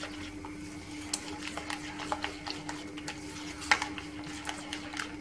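Blue silicone spatula stirring egg yolks, sugar and hot milk fast in a glass bowl, with irregular light clicks and taps against the glass, over a steady low hum. The quick stirring is to temper the yolks with the hot milk so they don't cook.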